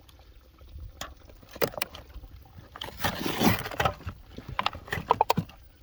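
Damaged cardboard soda boxes and aluminium cans being handled: scattered clicks and light knocks, with a rustling scrape about three seconds in.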